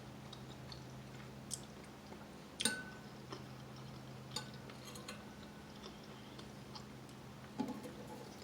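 Eating soup: a spoon clinks against the bowl several times, the loudest clink about two and a half seconds in with a brief ring, with soft chewing sounds between. A low steady hum runs underneath.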